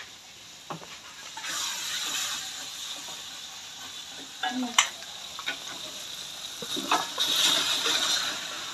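Spice paste sizzling in a wok on a gas stove, with a few clanks of a metal pot against the wok as chopped raw chicken is tipped in. The sizzle swells loudest near the end as the chicken hits the hot oil.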